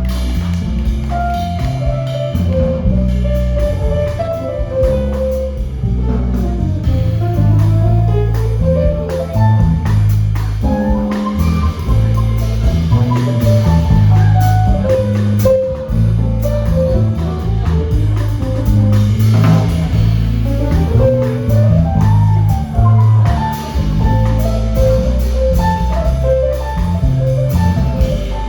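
Jazz band playing: guitar, piano, bass and drum kit, with a melodic line running over a walking bass and steady drums.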